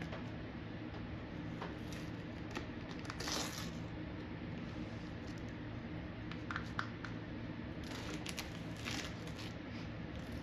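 Masking tape being peeled off hardened fiberglass resin, crinkling and tearing in short bursts about three seconds in and again several times in the second half, over a steady low hum.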